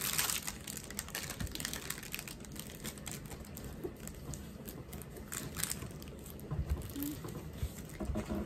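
Hands smoothing a diamond painting canvas flat on a table: scattered soft rustles and crinkles of its plastic cover film, with a few light taps.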